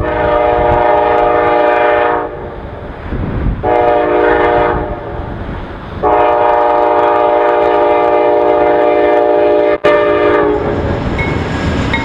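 Amtrak locomotive horn sounding a chord in three blasts at a grade crossing: a long blast, a short one, and a long held blast that stops about ten seconds in. The passing train's rumble and rail noise follow near the end.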